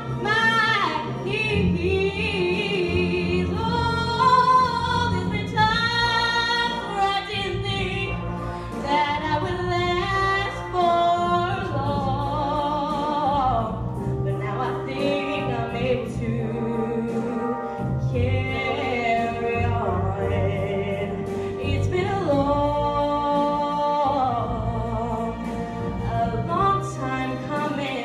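A young woman singing a slow song into a microphone, holding long notes with vibrato, over instrumental accompaniment.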